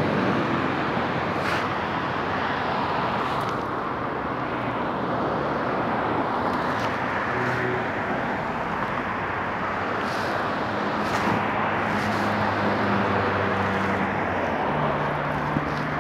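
Steady street-traffic noise heard from an electric bike riding in a city bike lane: an even rush of road noise with cars around. A low steady hum joins in during the second half.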